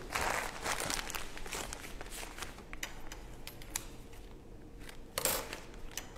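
Disposable plastic piping bag crinkling and rustling as it is handled, with scattered light crackles and a louder rustle about five seconds in.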